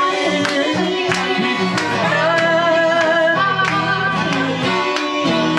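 Live acoustic folk music. A steel-string acoustic guitar is strummed in a steady rhythm, a guitar played flat on the lap adds sliding notes, and a man sings.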